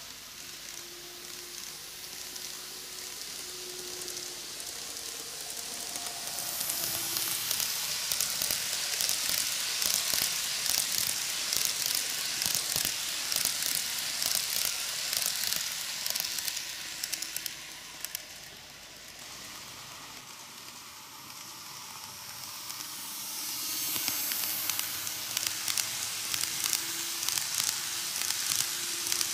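N-gauge model train, a KATO ED79 electric locomotive with passenger coaches, running on plastic-based superelevated track: a fine rattling hiss of many small wheel clicks. It grows louder as the train comes close, drops away for a few seconds past the middle and rises again near the end.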